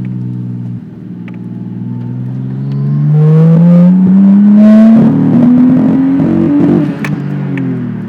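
Nissan Skyline's RB20DET turbocharged straight-six accelerating hard under load. Its note climbs for several seconds, turns ragged and stuttering near the top, then drops away. That stutter is a nasty miss and hesitation around 5000 rpm, which the owner thinks is either a spark problem or the ECU holding it back.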